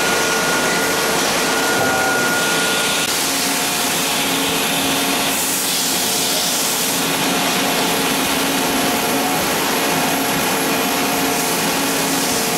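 Steady whirring hiss of running machinery, with faint steady hum tones underneath whose mix changes about three seconds in.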